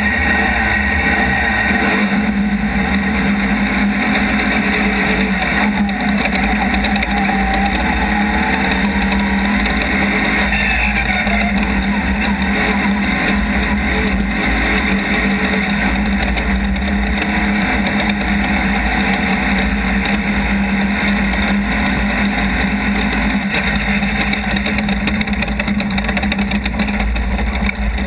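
Off-road race car's engine running hard without a break, its pitch rising and falling now and then with the throttle.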